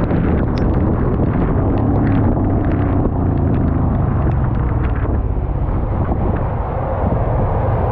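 Motorcycle engine running steadily under wind buffeting the microphone, with scattered short sharp ticks.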